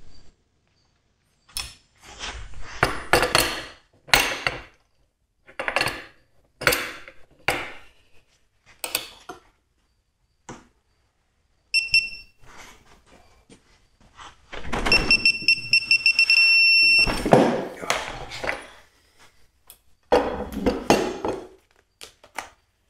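AC Delco digital torque wrench tightening a large bolt in a series of ratcheting strokes and clunks. It gives a short beep, then a steady beep of about two seconds as the set torque is reached. A further clatter of tool handling follows near the end.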